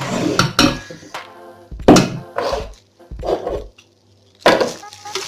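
Several separate knocks and thuds as a mixer grinder and its plastic cover are handled and worked open.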